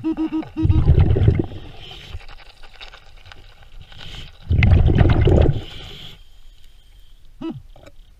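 Underwater metal detector giving a quick run of short, same-pitched beeps at the start, as its coil passes over metal on the lake bed. A scuba diver's exhaled air bubbles from the regulator rush past twice, about four seconds apart, each for about a second; these are the loudest sounds.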